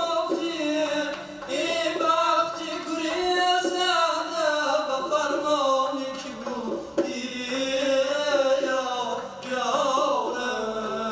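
Young male singers of a Shashmaqom ensemble singing together in long, ornamented held notes with wavering pitch, accompanied by plucked long-necked lutes.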